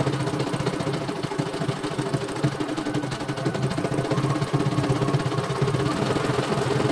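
CNY E900 computerized embroidery machine stitching steadily: the needle bar running at a fast, even rhythm over the motor's hum, with a faint higher whine that fades out and comes back about halfway through.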